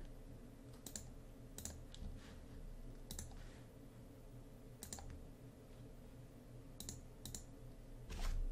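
Faint, sharp clicks of a computer mouse, about seven at uneven intervals, over a low steady hum.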